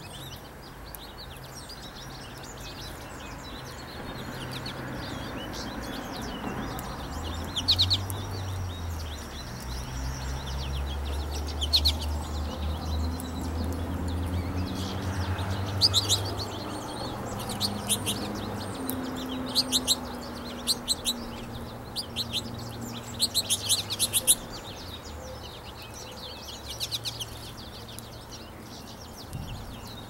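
American goldfinches calling: short clusters of high chirps every few seconds, busier in the second half. A steady low rumble runs underneath, swelling in the middle.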